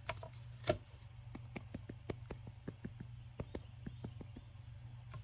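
Light, irregular taps, a few a second, of ink being dabbed onto paper, over a low steady hum.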